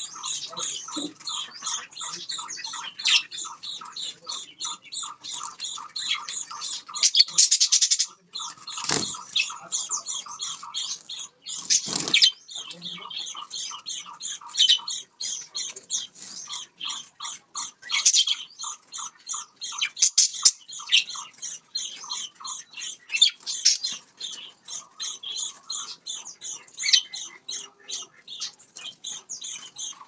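Budgerigars chirping and chattering in a rapid, continuous stream of short calls. Two dull knocks come about nine and twelve seconds in.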